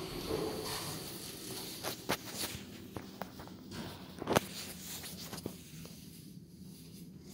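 Footsteps on a tiled floor: a handful of irregular sharp clicks and knocks, the loudest about four seconds in, over a steady low hum.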